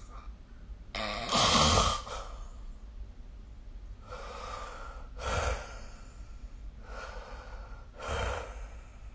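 A sleeping person snoring: three snores about three seconds apart, the first, about a second in, the loudest, with fainter breaths between them.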